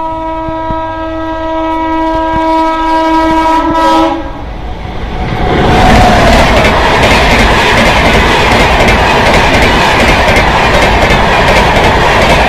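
An Indian Railways electric locomotive sounds one long, steady horn blast for about four seconds. From about five and a half seconds in, the locomotive and its LHB coaches pass close by at high speed, with loud, continuous wheel and rail noise and clattering over the rail joints.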